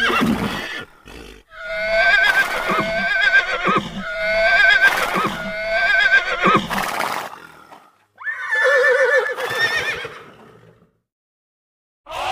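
Horse whinnying: one long quavering whinny of several seconds, then a second, shorter whinny about eight seconds in.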